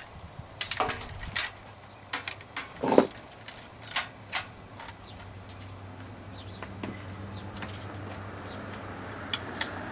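Scattered clicks and knocks of a cable and hands working against the handlebar and instrument-cluster parts of a Suzuki SV650 motorcycle, the loudest about three seconds in. After about five seconds a steady low hum comes up underneath and grows slowly louder, with a couple more clicks near the end.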